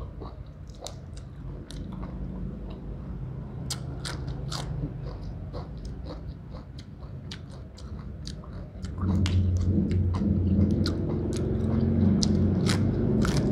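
Close-up chewing and biting of fresh lettuce and raw greens dipped in sauce, with many short crisp crunches and wet mouth clicks. A louder low steady hum comes in about nine seconds in.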